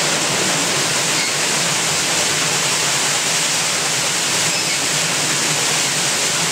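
Water falling steadily onto a wooden water wheel, a continuous splashing rush as the weight of the water turns the wheel.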